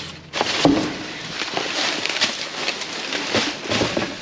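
Plastic trash bags and cardboard boxes rustling and crinkling in irregular crackles as a gloved hand digs through a dumpster's contents.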